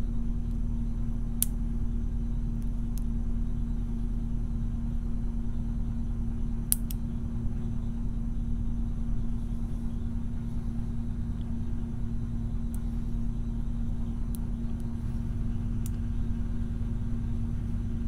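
A steady low machine hum with rumble underneath, with a few faint, sharp clicks now and then from a lock pick working the spring-loaded wafers of a brass Illinois Duo mortise cylinder.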